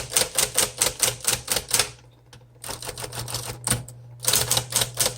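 1958 Smith Corona Electric portable typewriter being typed on fast: quick runs of sharp key strikes, several a second, with two short lulls, over a steady low hum.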